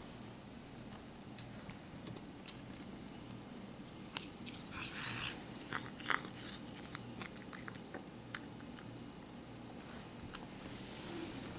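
A cat chewing blades of grass: a scatter of small crunching clicks, busiest in the middle, as it bites and grinds.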